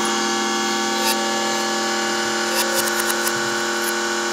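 Noise music: a loud, steady electronic drone of many held tones stacked together, with a few faint high clicks scattered through it.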